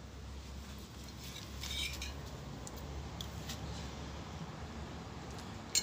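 A metal spoon lightly tapping and scraping in a bowl of cooked black beans as a spoonful is taken and eaten, a few small clicks over a low steady background hum.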